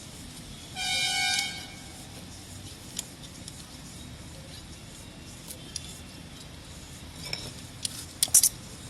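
A vehicle horn toots once for under a second, about a second in. Near the end comes a quick cluster of sharp clicks and knocks, the loudest sounds here.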